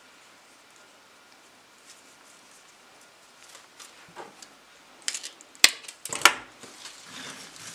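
Rustling of leaves and stems with several sharp clicks from handling a cut flower and a pair of pruning shears. It is quiet for the first few seconds, and the two loudest clicks come about two-thirds of the way through, less than a second apart.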